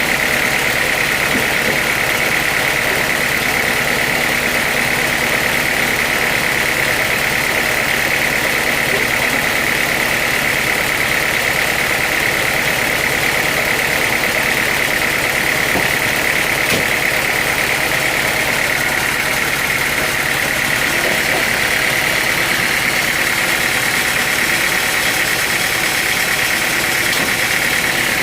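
Sawmill machinery running steadily on its engine, with a constant high whine over the engine noise.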